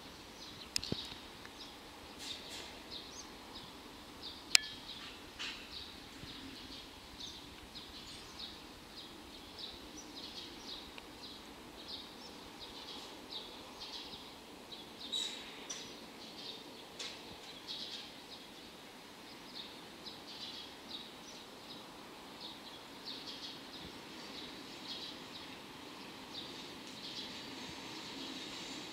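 Small birds chirping repeatedly over faint outdoor background noise, with one sharp click about four and a half seconds in. A low rumble slowly builds near the end as an electric locomotive approaches.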